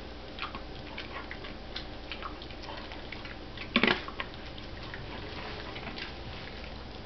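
Greyhound chewing a treat and licking its lips: small wet clicks and smacks of its mouth, with a brief louder burst of clicks about four seconds in.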